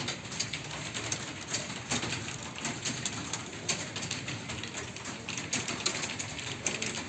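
Computer keyboard keys clicking in a fast, irregular patter as someone types.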